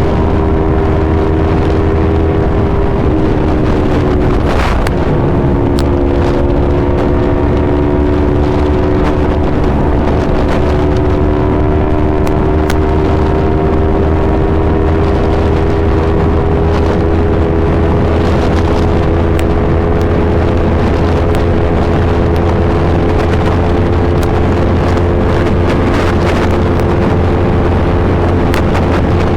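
Yamaha R3's 321 cc parallel-twin engine running through an Akrapovic full exhaust system at fairly steady revs. The note drops about four seconds in, then slowly climbs, over a low rumble of wind on the microphone.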